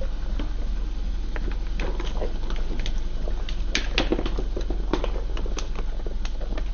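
Thin plastic cups and drink-filled plastic bags crackling and popping as a car tyre rolls over and crushes them. There is a dense cluster of sharp crackles about four seconds in, over a steady low hum.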